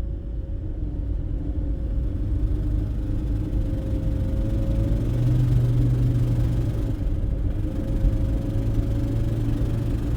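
Toyota Prius drivetrain running at about 2,500 to 3,000 rpm: a steady low rumble with a droning hum that grows louder about halfway through. This is the weird sound the owner hears in that rpm range.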